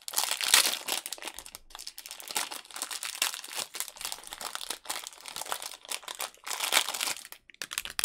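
Clear plastic wrapping crinkling and crackling as it is pulled off a small plastic part by hand, in irregular bursts, loudest about half a second in and again near the end.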